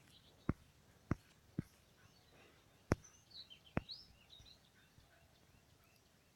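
Faint bird chirps in the background, short quick calls bunched a little past the middle, with about five sharp clicks scattered through the pause.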